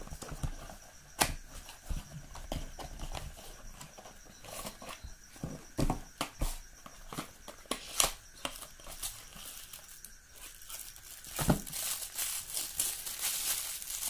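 Small cardboard box and its inner cardboard tray being handled during unboxing: scattered taps and clicks as the box is opened and the tray is slid out and turned in the hands, with a stretch of rustling near the end as a battery charger is lifted out.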